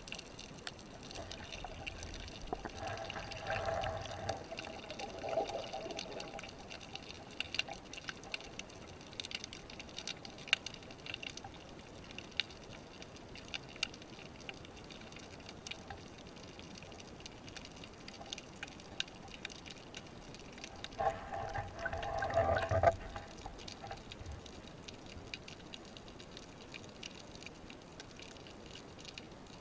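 Underwater reef ambience: a faint, constant crackle of tiny clicks, with two louder stretches of water noise, about three to six seconds in and again around twenty-one to twenty-three seconds in, the second the loudest.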